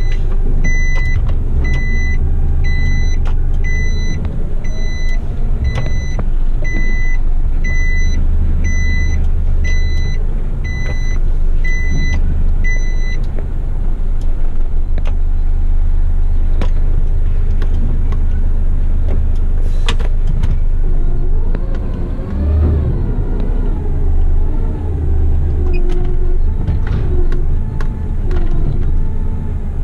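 Isuzu front-lift waste truck running, heard from inside the cab as a steady low engine rumble. Over it, for about the first half, an electronic beeper sounds about every three-quarters of a second, then stops.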